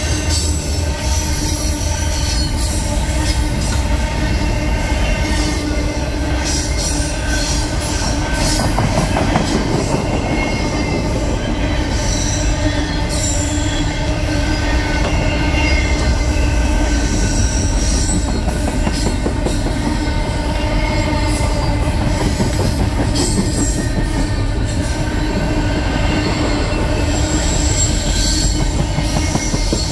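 Double-stack container freight train rolling past close by: a steady loud rumble and clatter of wheels on rail, with a faint high wheel squeal now and then.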